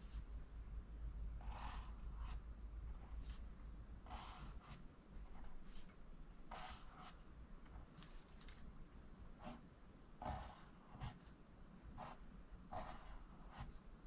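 Pencil sliding and scratching on paper while lowercase letter j's are written one after another: short scratchy strokes, about one or two a second, with brief pauses between.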